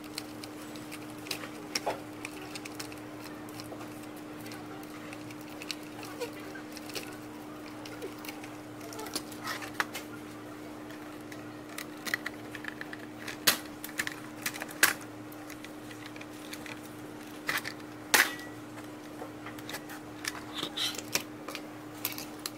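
Irregular clicks, taps and knocks of a robot vacuum's plastic housing, parts and wire connectors being handled during disassembly, with a few sharper knocks about halfway through. A steady low hum sits underneath.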